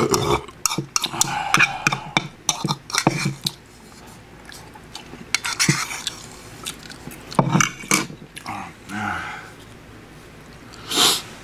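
Metal spoon scraping and clicking against a ceramic bowl as food is shovelled into the mouth, with chewing between the strokes. A short breathy noise comes near the end.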